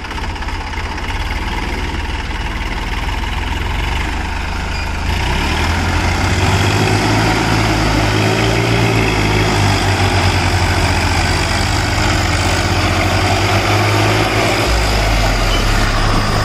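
Diesel tractor engines running as a Swaraj 744 FE and a stuck Massey Ferguson work against a tow rope through mud. The engines get louder about five seconds in and stay under load, their note wavering up and down.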